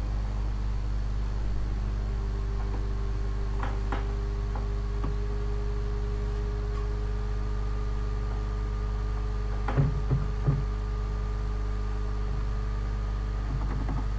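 Steady low electrical hum on the recording, with a faint steady higher tone joining about two seconds in. About ten seconds in come three short, soft knocks in quick succession.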